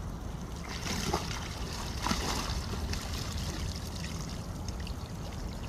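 River water trickling and flowing steadily, with a couple of faint knocks about one and two seconds in.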